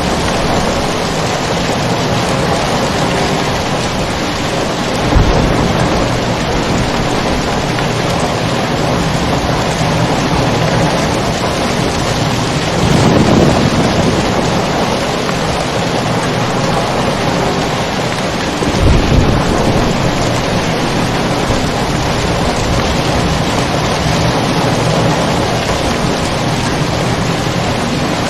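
Steady heavy rain with low thunder rumbling three times: once early, a longer roll in the middle and a short one about two-thirds of the way through.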